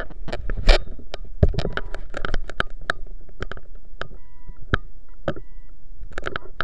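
Irregular sharp knocks and clatter as a small plastic RC jet boat's hull bumps and scrapes over stones in water too shallow for it, with water splashing. It is heard up close through an onboard sports camera's waterproof case.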